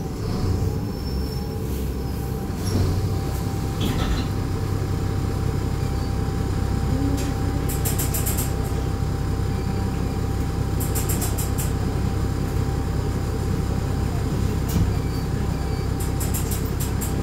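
Mercedes-Benz O500U city bus heard from inside, its diesel engine running with a steady low rumble as the bus stands at a stop. A thin steady whine runs through most of it, and three short spells of rapid high ticking come and go.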